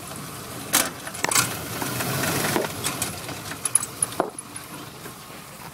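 Willys MB jeep's Go Devil four-cylinder engine running with sharp, irregular metallic knocks and clatter from the drivetrain, a knock the owner finds stops when the clutch is pressed. The knocks die away about four seconds in, leaving a quieter steady engine sound.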